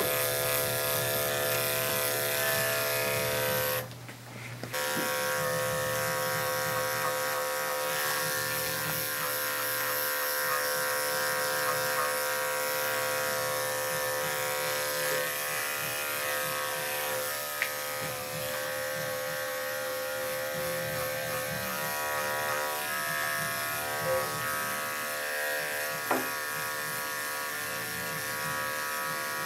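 Electric dog grooming clippers running steadily while shaving a matted coat down close to the skin. The hum briefly drops away about four seconds in.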